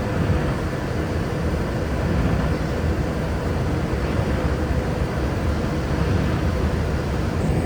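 Steady road noise of a car driving on a wet highway: tyre rumble and engine hum.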